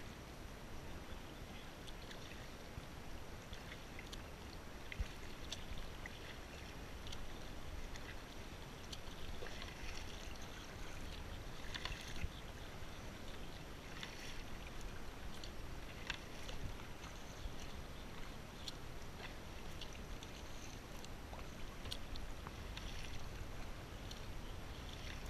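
Kayak paddling: a double-bladed paddle dipping into the water with small splashes roughly every two seconds, water dripping off the blades, over a steady low rumble.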